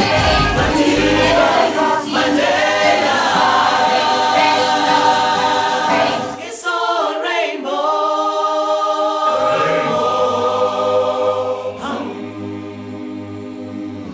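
Children's choir singing together, the later phrases on long held notes, growing softer near the end.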